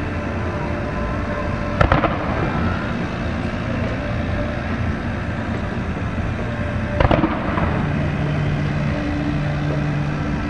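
Fireworks aerial shells bursting: two sharp bangs about five seconds apart, each followed by an echoing rumble, over a steady background din. A steady low hum comes in about two-thirds of the way through.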